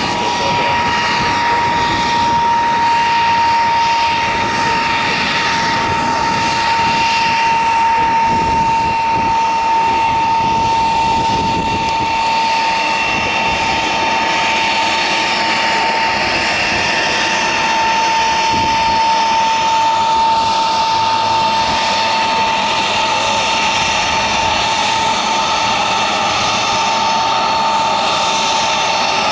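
De Havilland Vampire's Goblin turbojet running at taxi power: a steady, high whine that sags very slightly in pitch, over a continuous jet rush.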